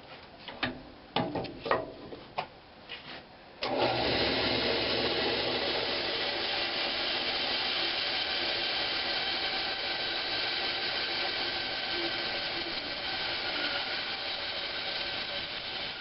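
A few knocks of wood and a ruler being handled, then about four seconds in a table saw is switched on and runs steadily, ready to rip pine knob blanks.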